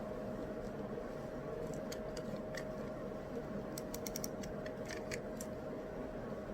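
Steady white-noise hiss with a faint hum, and a scatter of light sharp clicks and taps from about two seconds in, bunched together in the middle and stopping about a second before the end.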